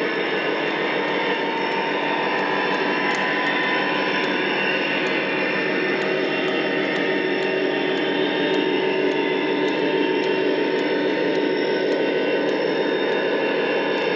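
O scale model train running along the track: a steady mix of motor whine and wheel noise, with faint clicks as the wheels cross rail joints every half second or so.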